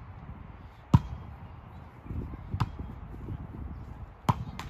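A volleyball being struck by players' hands and forearms during a rally: four sharp slaps, the loudest about a second in, another in the middle, and two in quick succession near the end.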